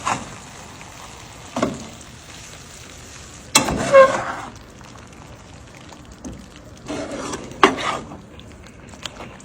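Cooking sounds: a few knocks and clatters of utensils on cookware, the loudest about four seconds in with a brief ringing tone, over a faint steady sizzle.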